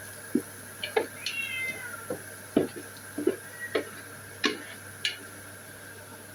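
Short high-pitched animal cries that fall in pitch, repeated several times, with scattered short pops and knocks between them.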